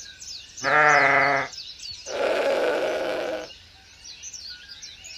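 Sheep bleating twice: a short wavering bleat about a second in, then a longer, raspier bleat, with faint birdsong chirping in the background.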